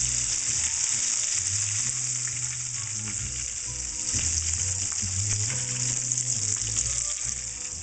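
Battered shrimp deep-frying in hot oil in a pan: a steady, loud sizzle with fine crackling.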